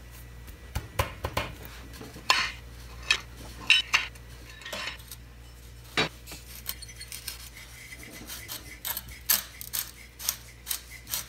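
Scattered metallic clicks and clinks as a C-spanner and then a hand work the finned exhaust ring nut of a 1961 Norton Manxman 650 loose from the cylinder head, over a faint steady low hum.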